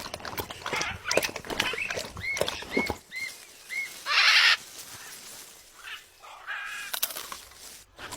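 Parrot giving a run of four short arched whistles, then a loud, noisy screech about four seconds in, followed by softer calls; clicks and taps fill the first three seconds.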